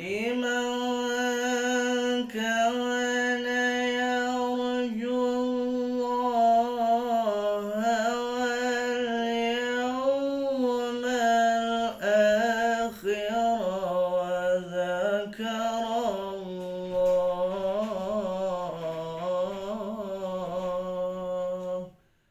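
A man's voice in slow, melodic Quranic recitation, drawing out long ornamented notes that waver and glide in pitch, with short breaths between phrases. The voice stops just before the end.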